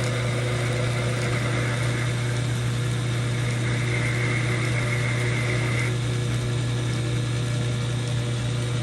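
Old metal lathe running steadily with a constant low hum, and a high steady whine over it that stops about six seconds in.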